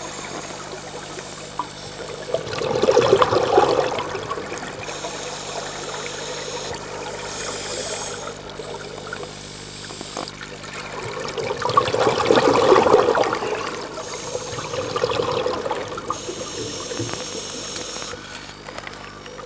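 Scuba diver's exhaled air bubbling out of the regulator underwater, in rushing bursts of about two seconds, a few seconds in and again about two-thirds through, with a steady faint hum underneath.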